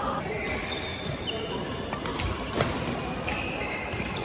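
Badminton rackets striking a shuttlecock in a fast rally: a string of sharp hits, the loudest a little past halfway, with short squeaks of shoes on the court mats and hits from neighbouring courts.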